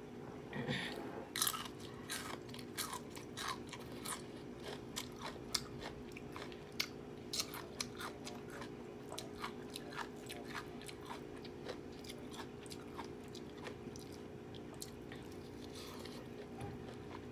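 A person chewing food close to the microphone, with many small crisp crunches and wet clicks coming irregularly, a little louder in the first second or two.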